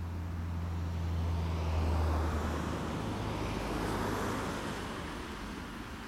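Road traffic passing: tyre and engine noise swells, peaking around two seconds in and again around four seconds, then fades. A steady low engine hum under it stops a little before halfway through.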